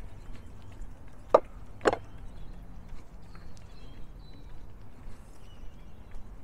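Two sharp knocks about half a second apart, with faint bird chirps afterwards.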